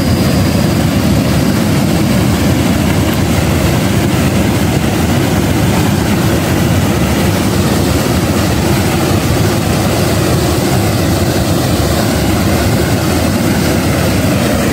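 Water surging up in dome-shaped gushers and crashing back into a hydropower plant's headpond: a loud, steady rushing with no breaks.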